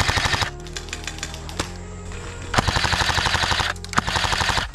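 Airsoft rifles firing on full auto: a short rapid burst at the start and a longer burst of about a second near the middle, with fainter rapid shots between them.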